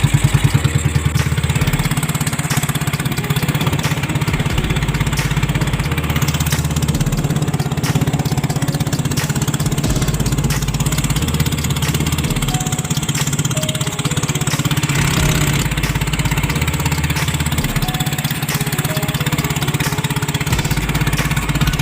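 Small boat engine running steadily at an even speed, with a fast, regular putter.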